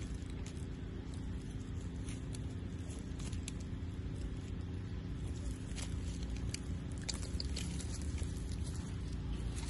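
Long-tailed macaques chewing food and moving on dry fallen leaves: scattered soft crackles and ticks over a steady low rumble.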